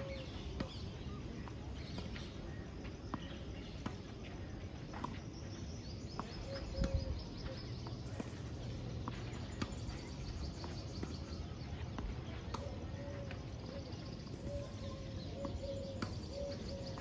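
Tennis ball struck back and forth with rackets in a rally on a clay court, sharp hits every second or two. Birds call in the background with short repeated notes.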